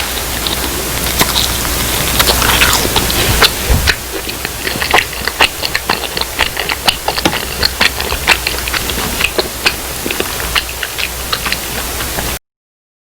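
Rustling and crackling of food packaging being handled, with many sharp crinkling clicks that grow denser partway through; it cuts off abruptly near the end.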